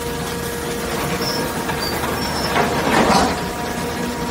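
Heavy scrap-yard machinery running, an excavator and a hydraulic scrap baler-shear, with a steady hum and whine. About two and a half seconds in comes a louder rush of scraping, hissing noise that lasts under a second.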